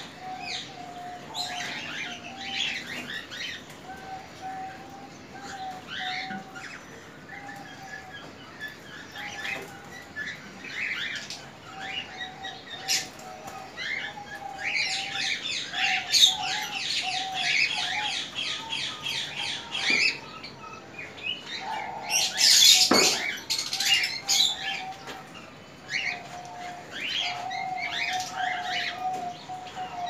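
Caged budgerigars and cockatiels chirping and chattering, with a fast chattering run in the middle, and wings flapping. A loud sudden flurry comes about 22 seconds in.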